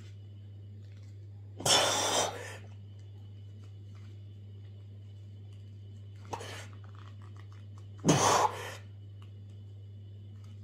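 A man grunting and blowing out hard as he strains to tear a deck of playing cards in half by hand. There are two loud bursts, about two seconds in and again about eight seconds in, with a shorter, weaker one between, over a steady low hum.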